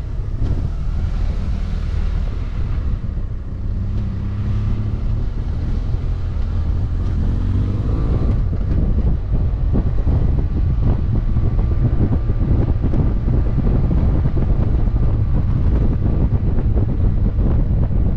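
Wind buffeting the microphone over a BMW F800GT motorcycle's parallel-twin engine running on the move. The engine's pitch climbs about halfway through as the bike accelerates, then holds steady.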